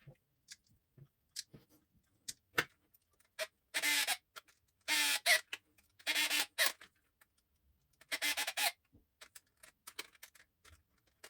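Four screws being driven into the plastic motor housing of a cordless lawn mower: four separate bursts of about half a second to a second each, with small clicks and taps of the screws and tool in between.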